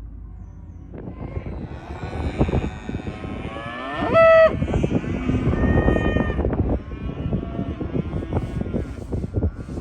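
Cattle bawling and mooing, several at once, over a clatter of knocks and bangs. About four seconds in comes one short, loud, high-pitched call.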